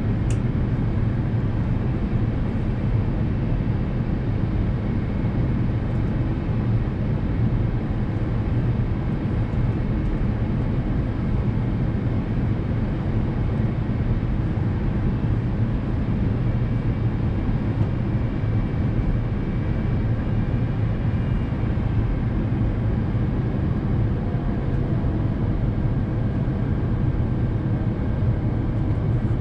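Steady cabin roar of an Airbus A350-900 airliner during its descent: Rolls-Royce Trent XWB engines and airflow over the fuselage, heavy in the bass. A faint high whine comes and goes about halfway through.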